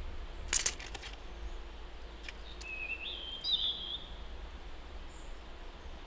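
A short wild songbird call a few seconds in, starting lower and stepping up in pitch, over a steady low outdoor rumble. About half a second in comes a quick cluster of sharp clicks, the loudest sound, with a few fainter clicks later.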